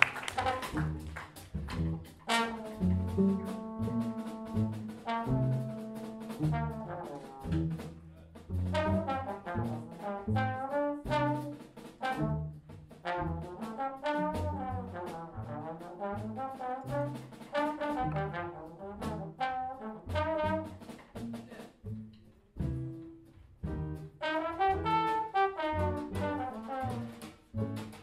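Improvised jazz trombone solo, with melodic phrases rising and falling, over bass and drums in a big band.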